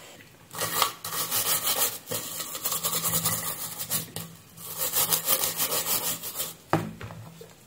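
A stiff bristle brush scrubbing the soldered side of a charger's circuit board in rapid back-and-forth strokes, cleaning residue off the solder joints. Two bouts of scrubbing with a short pause between, then a single click near the end.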